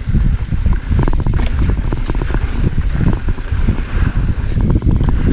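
Wind buffeting the microphone of a mountain bike ride on rough dirt single-track, with a steady low rumble from the tyres and repeated clattering knocks as the bike goes over bumps.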